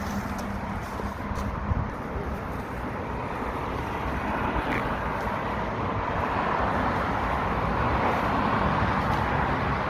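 Two-stroke chainsaw engine running steadily, growing louder through the second half.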